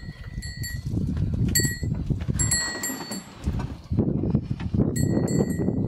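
Old IKA Jeep's engine idling with a low, uneven rumble while the jeep stands stopped, with high ringing tones that start and stop several times over it.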